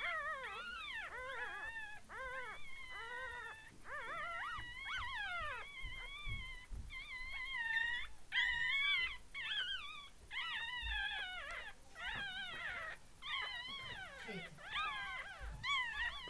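Newborn Yorkshire terrier puppies, two days old, squealing and whining: a string of high, wavering cries that rise and fall in pitch, one after another with short breaks.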